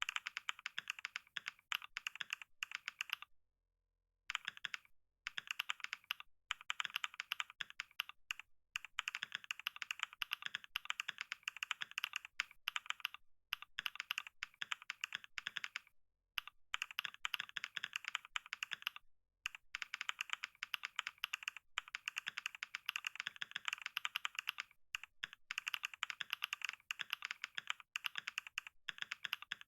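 Fast typing on a computer keyboard: a dense stream of key clicks, broken by a few brief pauses, the longest about four seconds in.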